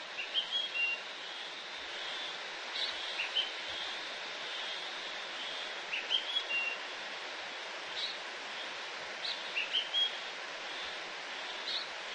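Outdoor ambience: a steady hiss with small birds chirping now and then in short, high, irregular chirps, a few in a cluster about every one to three seconds.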